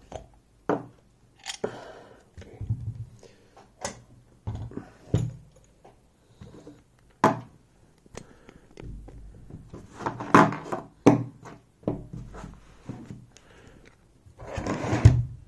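Irregular sharp clicks and knocks with a few duller thunks: a picked lock cylinder being worked out of the holder it was mounted in, metal parts knocking against each other.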